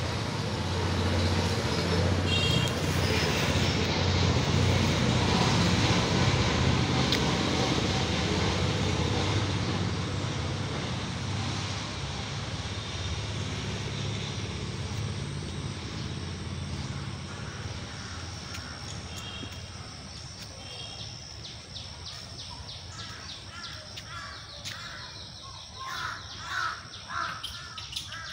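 A steady engine hum with broad noise, slowly fading over the first half, then a run of short, loud repeated animal calls about three seconds before the end.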